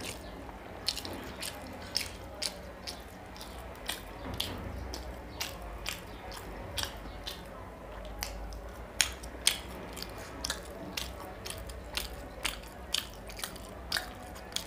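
Close-miked chewing and wet lip-smacking of a mouthful of rice and fish curry eaten by hand, a run of sharp, irregular mouth clicks about twice a second.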